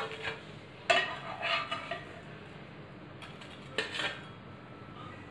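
Metal spatula clinking and scraping against a non-stick frying pan and a stainless steel plate as toasted sandwiches are lifted off the pan, in a few short separate clinks.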